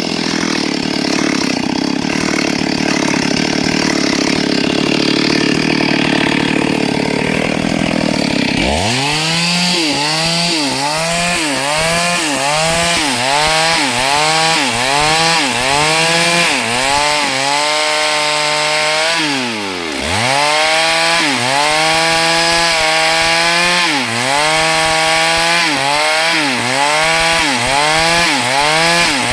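STIHL MS382 two-stroke chainsaw cutting through hardwood at full throttle. After about eight seconds the engine note starts dipping and recovering in a regular rhythm, about once a second, and dips once more deeply about two-thirds of the way through.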